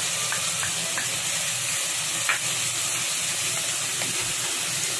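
Chopped onions and fresh ginger-garlic paste sizzling steadily in hot sesame oil as they are stirred with a wooden spatula, with a few light clicks.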